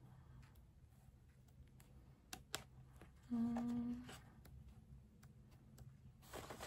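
Pages of a paperback colouring book being flipped, with faint paper rustles and flicks. About three seconds in comes a short, steady hummed "mmm" from a woman, lasting under a second.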